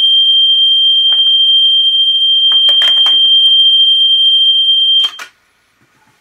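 Steady 3 kHz test tone played back from an alignment tape on a Pioneer CT-W205R cassette deck, used to set the playback head's azimuth, with a few clicks of handling about three seconds in. About five seconds in, the tone cuts off abruptly with a couple of clicks.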